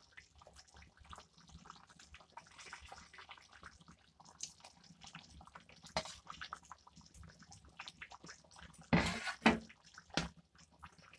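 Fish curry broth bubbling at the boil in a pan, a steady patter of small pops. About nine seconds in come a few louder scraping strokes as a spatula stirs through the pan.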